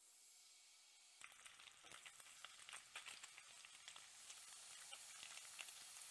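Oil sizzling in a frying pan, starting about a second in: a steady hiss with many small crackling pops.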